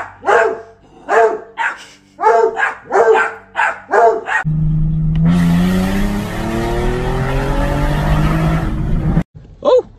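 A dog barking over and over in quick succession, about eight barks in four seconds. Then a car engine revving up, its pitch rising, under loud rushing wind and road noise that cuts off abruptly near the end.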